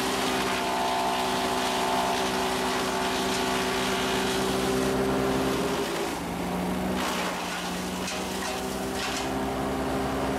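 A Rayco 6-inch tow-behind wood chipper runs steadily on its Vanguard petrol engine, its drum spinning and the discharge chute blowing out wood chips. About six seconds in, the engine note dips briefly, and a few sharp cracks of wood going through the chipper follow.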